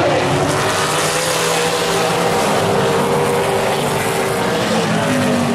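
A pack of Super Late Model stock cars' V8 engines running hard as the field races around the paved oval, several engine notes overlapping and shifting in pitch.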